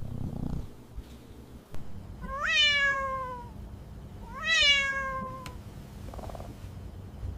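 A Siamese kitten meowing twice, each call rising briefly and then falling in pitch, over steady low purring.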